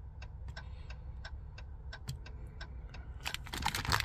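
Even tick-tock of the 2021 Ram's flashers sounding from the dash, about three ticks a second. Near the end, rustling and handling noise comes in over it.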